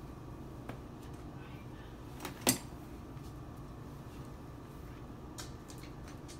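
Objects being handled: one sharp clack about two and a half seconds in and a few faint clicks, over a low steady hum.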